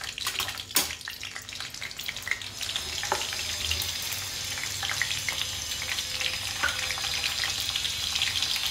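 Mustard and cumin seeds sizzling and crackling in hot mustard oil in a kadhai as a spatula stirs them. There is one sharp knock about a second in.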